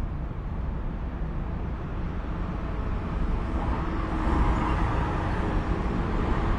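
Road traffic rumble, with a vehicle drawing closer and getting louder from about halfway.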